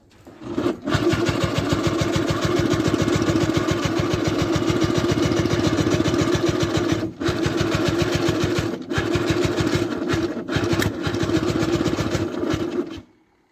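Niva SK-5 combine harvester's diesel engine running steadily with a rapid, even beat. It comes in about half a second in, breaks off briefly three times, and stops just before the end.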